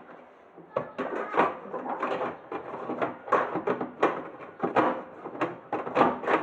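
Dishwasher's plastic filter being fitted back into its seat in the bottom of the tub: a quick irregular series of hard plastic clicks and knocks.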